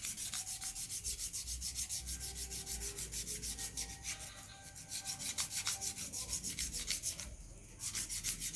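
Fine sandpaper rubbed rapidly back and forth on a part of a water-soaked starter motor, about five or six strokes a second, pausing briefly twice. The sanding removes the rust that would keep the part from turning.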